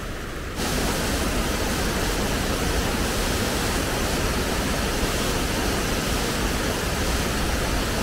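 Steady rushing of a large waterfall in heavy flow after days of rain, setting in suddenly about half a second in after a brief low rumble.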